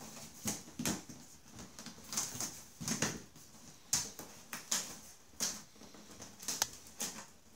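Fingers scratching and picking at the tape and flap of a cardboard box, giving short scratchy clicks and rustles about once a second.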